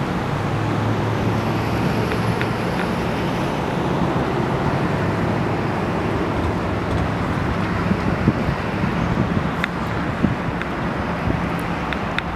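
Motorboats running past on open water, first a cabin motor yacht and then a pontoon boat with an outboard motor. A low, steady engine drone that is strongest in the first few seconds sits over a continuous rushing noise.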